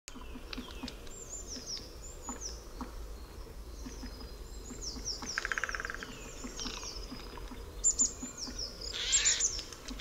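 Small birds calling and singing: many short, high, falling chirps, with a quick rattling trill about halfway through and busier calling near the end.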